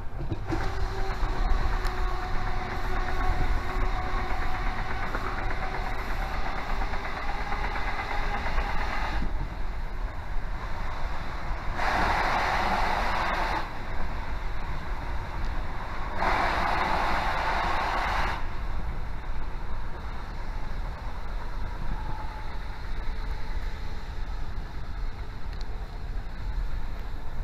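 Passenger train running at speed, heard from inside the carriage by a door window: a steady running rumble, with two louder rushing stretches of about two seconds each, around 12 and 16 seconds in.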